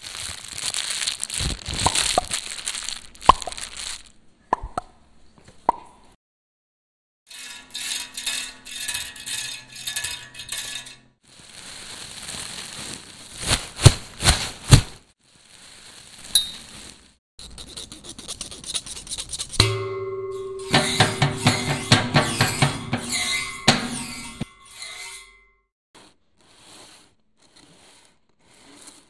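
Home-recorded sound effects for a stop-motion film: bursts of crackly, rustling noise with sharp clicks and knocks, broken by short silences. About two-thirds through, steady pitched tones sound under the noise, and near the end only faint short bursts remain.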